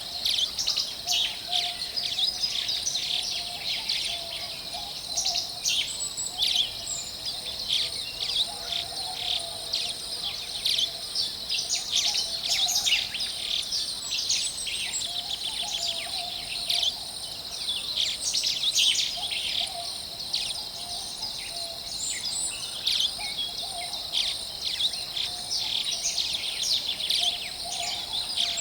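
Many birds chirping and singing at once in a dense, continuous chorus of quick high notes, with softer lower calls now and then. A steady high insect drone runs underneath.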